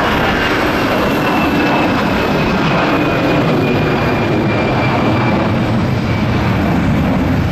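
Airbus A320's jet engines at takeoff thrust, a loud steady roar with a thin whine that slowly falls in pitch as the airliner climbs away.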